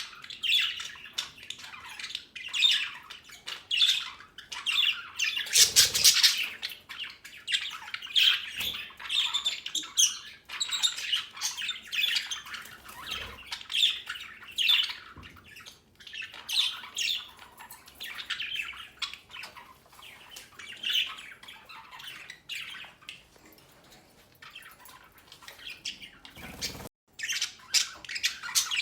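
A flock of budgerigars chattering and squawking continuously, a dense mix of chirps and harsh calls with louder flurries, and a brief knock near the end.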